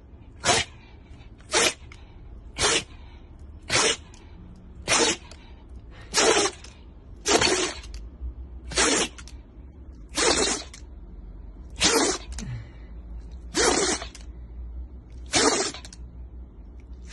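A Shiba Inu sneezing over and over, about a dozen sharp sneezes in a row, one every second or so, the gaps lengthening toward the end.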